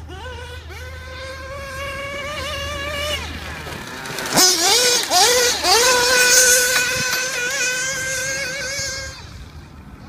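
Modified Picco Boost two-stroke nitro engine in a 1/8-scale Xray XB8 buggy, revving up and down in a high-pitched whine as the buggy is driven on gravel. About four seconds in the pitch drops sharply and climbs again as it passes close, loudest just after, then it holds a steady high note and fades away near the end.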